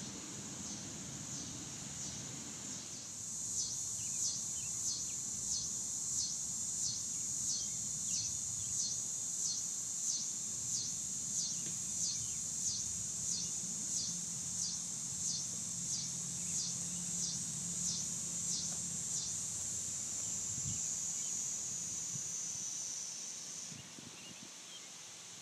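A chorus of insects: a high buzzing drone that pulses about one and a half times a second, coming in a few seconds in and cutting off near the end, over a faint low hum.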